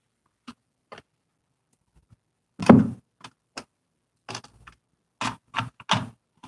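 Scattered small clicks and taps of hands handling a digital multimeter and small phone parts on a work table, with one louder knock about three seconds in.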